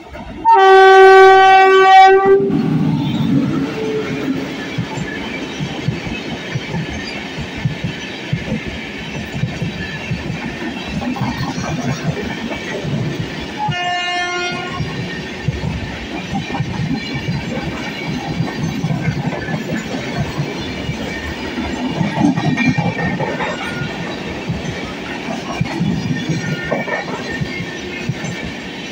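Electric locomotive of the Amritsar Mail express sounding a loud two-tone horn blast about a second in, with a second, shorter horn about halfway through. Throughout, the long train of LHB passenger coaches passes close by at speed with a steady rumble and clickety-clack of wheels over rail joints.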